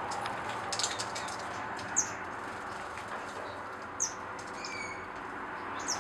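Small aviary finches and waxbills giving short, high, falling chirps about every two seconds, with a few softer calls between them and a brief flutter of wings about a second in.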